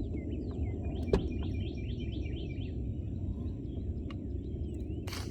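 Songbirds chirping, a series of short downward-sliding calls with a quick run of them in the middle, over a steady low rumble. A sharp click about a second in, and a short hiss near the end.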